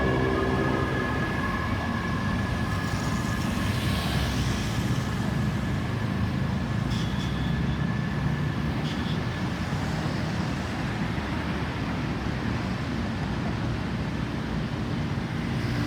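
Steady road traffic noise from passing vehicles. A faint steady high tone fades out over the first few seconds.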